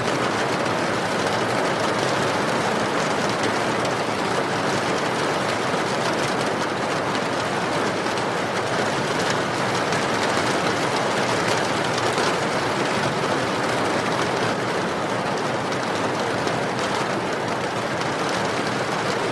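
Steady, heavy rain falling, an even wash of noise with no separate drops or pauses standing out.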